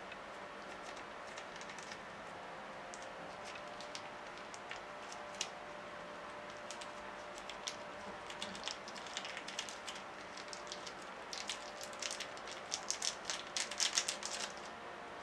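Foil seasoning sachets crinkling and crackling as hands squeeze and handle them over an instant noodle cup, with scattered ticks at first and a dense, louder run of crackling near the end, over a faint steady hum.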